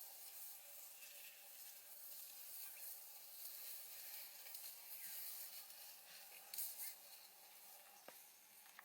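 Near silence: a faint steady hiss, with a brief louder rustle about six and a half seconds in.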